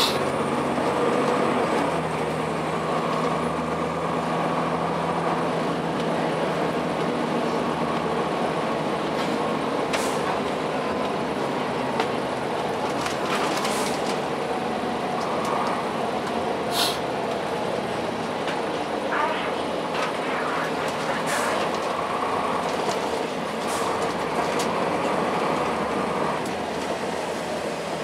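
Cummins ISC inline-six diesel of a 2002 Blue Bird CS transit bus running under way, heard from inside the cabin. The engine note steps up and down a few times as the Allison automatic changes speed, with several sharp clicks and rattles from the body along the way.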